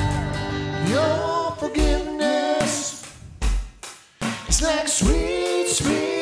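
A live worship band: a woman sings the lead melody over electric guitar and drums, the drum hits landing regularly through the phrase.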